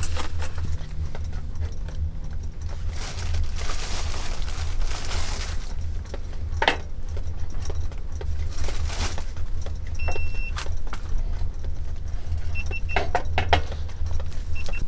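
Scattered knocks and clatter from handling a frying pan and tortillas on a portable butane stove, over a steady low rumble. A brief high squeak comes about ten seconds in.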